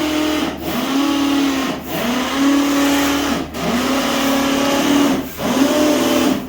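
A motor running in repeated cycles: its pitch climbs, holds steady for a second or so, then drops, about every one and a half seconds.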